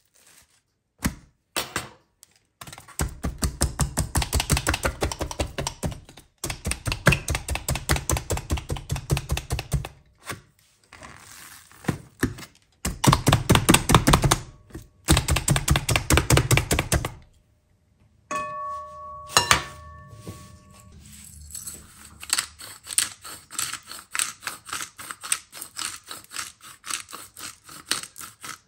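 A bladed meat tenderizer (Shimomura PG-601 sinew cutter) pressed rapidly into a raw steak on a cutting board. It makes fast, even thunks at about five a second in three bursts of a few seconds each. Near the middle there is a short metallic ring with a click, then softer rubbing strokes.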